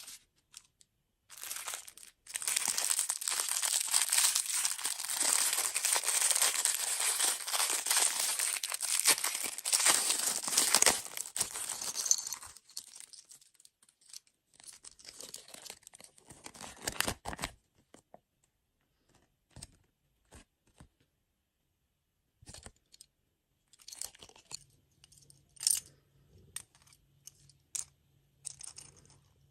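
Packaging being torn open and crinkled, a dense crackling rustle for about ten seconds, then scattered light clicks and rustles as it is handled.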